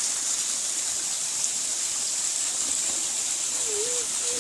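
Waterfall: a steady rushing hiss of falling water.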